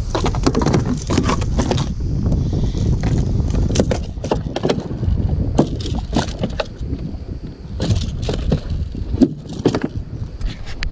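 Irregular clicks, knocks and rattles of gear being handled on a plastic fishing kayak's deck, over a steady low rumble of wind on the microphone.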